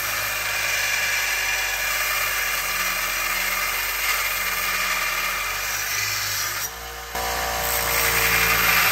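Small bench belt sander running, with railroad spike steel ground against its belt and throwing sparks. The steady grinding noise drops out briefly about seven seconds in, then comes back a little louder.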